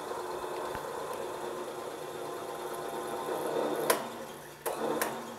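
Milling machine spindle running steadily in back gear at its slowest speed, turning a tap that cuts threads into a drilled hole in the end of a steel hydraulic cylinder rod. A sharp click comes about four seconds in and two more follow near the end, as the tap slips in its collet, before the running sound falls away.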